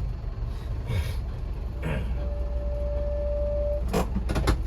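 Low engine and road rumble inside the cabin of a DMV dual-mode rail-bus running on the road. A steady electronic beep sounds midway for about a second and a half, and a few sharp clicks come near the end.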